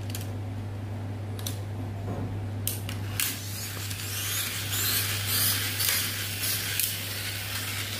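Pull-back motors of toy battle cars being wound by dragging them backward across a tile floor: repeated short strokes of whirring gears, starting about three seconds in, over a steady low hum.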